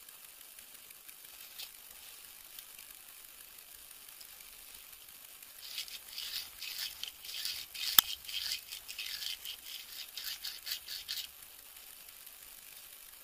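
Dry esparto grass stalks rustling and crackling as a bunch is worked and pulled through the hands, starting about six seconds in and stopping shortly before the end. A single sharp click stands out partway through.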